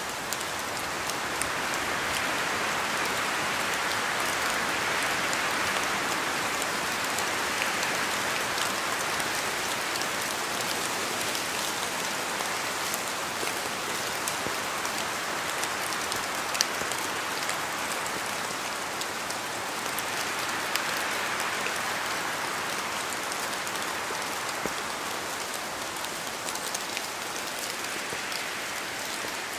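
Steady rain falling on a surface, an even hiss of many drops that swells and eases gently, with scattered individual drop ticks.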